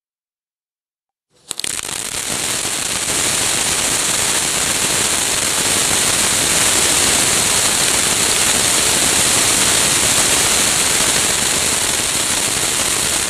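Crackling fountain firework going off: it catches sharply about a second and a half in, then gives a dense, steady crackle over a high hiss of sparks.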